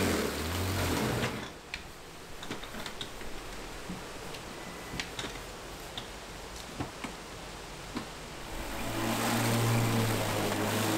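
Ryobi cordless electric lawn mower's motor running with a steady hum, cutting out about a second in and starting again near the end. In between there are a few scattered clicks and knocks. The mower stops like this when it gets stuck in grass that is too tall.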